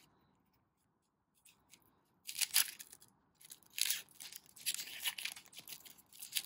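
Foil Pokémon booster pack wrapper being torn open and crinkled as the cards are pulled out. The crackling starts about two seconds in, with the loudest rips at about two and a half seconds and about four seconds.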